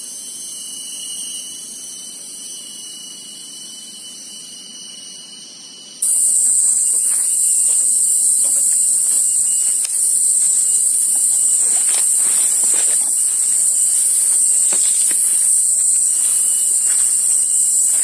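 Cicadas droning in a steady, shrill chorus. About six seconds in, the drone switches abruptly to a lower, louder pitch. Faint rustles of footsteps in leaf litter come in the second half.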